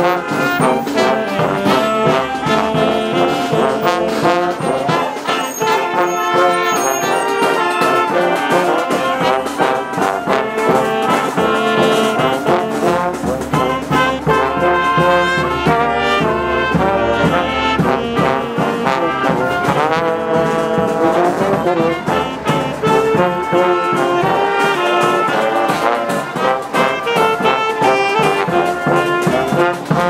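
Street brass band playing a lively tune on the march: trombone, trumpet and saxophone lines over snare and bass drum beats.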